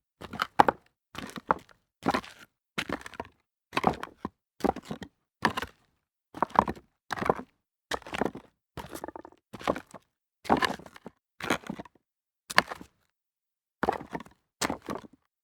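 Footsteps walking over rocks, one step about every two-thirds of a second at an even pace, with a pause of about a second near the end.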